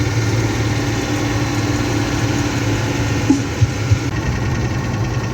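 Water-tanker truck engine running steadily with a low hum, with a few light knocks around four seconds in.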